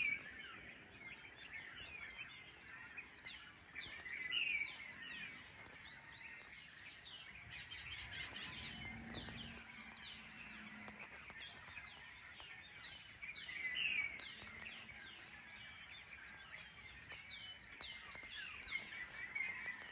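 Dawn chorus of many birds, a steady mix of overlapping short chirps and calls, with a brief rush of broader noise about eight seconds in.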